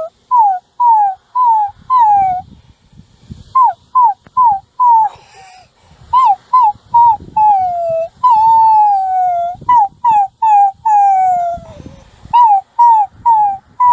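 Puppy whimpering and crying: a rapid string of short, high whines, each falling in pitch, with a few longer drawn-out whines between them.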